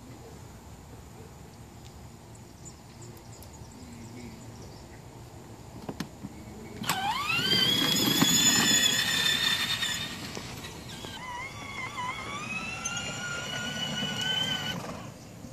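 Battery-powered ride-on toy motorcycle driving off. Its electric motor whine climbs quickly in pitch about seven seconds in and holds, eases off, then climbs and holds again before cutting off suddenly near the end, over a low rumble of the gears and plastic wheels.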